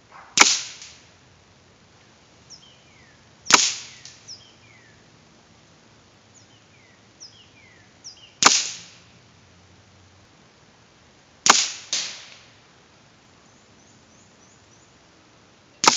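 Five sharp cracks of a spring-piston break-barrel pellet rifle firing, a few seconds apart, heard from downrange near the target; the fourth has a second crack about half a second after it.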